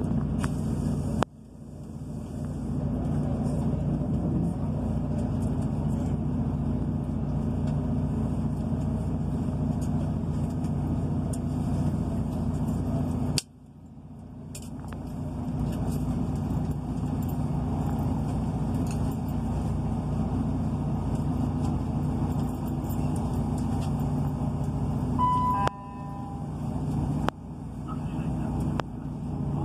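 Class 158 diesel multiple unit heard from inside the carriage as the train pulls away: a steady low drone of the underfloor diesel engine, with the rumble of wheels on the rails. Twice the sound cuts down sharply and builds back up over a few seconds. There is a short beep near the end.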